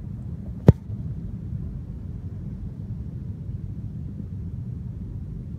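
An American football kicked off a tee: one sharp thud of the foot striking the ball, under a steady low rumble.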